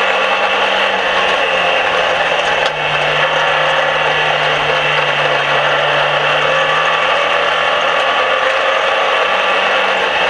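Dirt-track race car engine running hard, heard from a camera mounted in the cockpit as a loud, buzzing drone. Its note drops about three seconds in and climbs again near the end.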